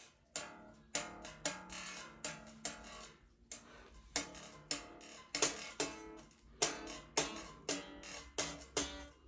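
Unamplified 10-string Grand Chapman Stick, its strings tapped lightly as single notes, a few a second, with a short pause about three and a half seconds in.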